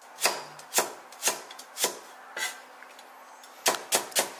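Chinese cleaver slicing carrot into thin diamond-shaped pieces on an end-grain wooden chopping board, each stroke a crisp knock on the wood. The knocks come about two a second, stop briefly, then four come in quicker succession near the end.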